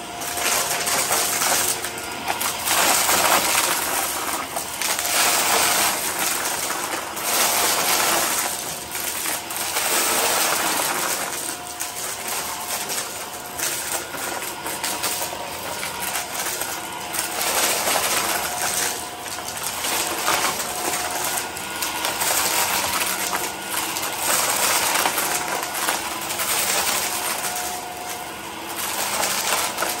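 Hart Pro upright vacuum running over carpet and sucking up crunchy small debris, which rattles and crackles into it over a steady motor hum. The crackling swells and fades about every two seconds with each stroke.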